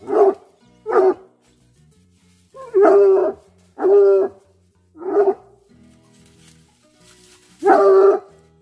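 American Foxhound baying: six loud, pitched bawls. Some are short, and two are drawn out to most of a second.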